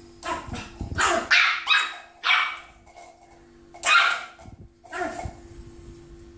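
Yorkshire terrier puppy barking at its toy ball in short, sharp barks, a quick run of them at first and then two more after a pause, with a faint steady hum underneath.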